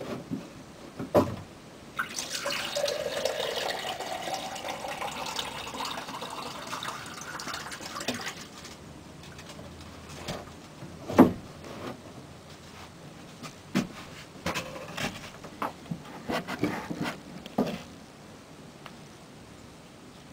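Water running into a cup and filling it for about six seconds, starting about two seconds in, then a few scattered knocks and clunks as the cup is handled.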